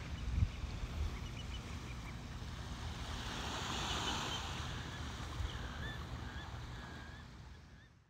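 Small waves breaking and washing on a sandy beach, with wind rumbling on the microphone. From about two seconds in, a bird calls repeatedly in short, high chirps. The sound fades out near the end.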